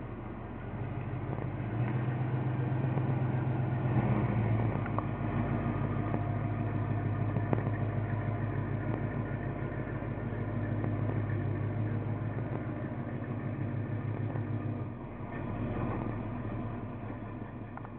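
1992 GMC Sonoma's 370 hp 355 V8 running at low speed as the truck is driven slowly into a garage, a steady low exhaust rumble. It grows louder about two seconds in and drops about fifteen seconds in.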